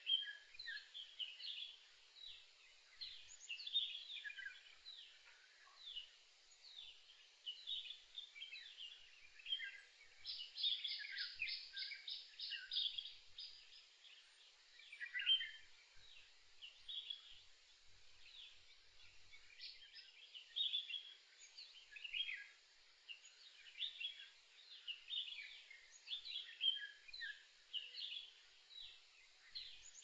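Several birds chirping and calling, short high notes overlapping throughout. About ten seconds in, one bird gives a quick run of evenly repeated notes, about four a second, lasting some three seconds.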